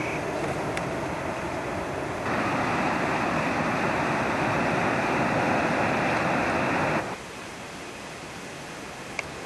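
Steady rushing roar of the Yellowstone River and its Lower Falls in the canyon below. It is louder from about two seconds in to about seven seconds in, with abrupt steps at each change. A brief click comes near the end.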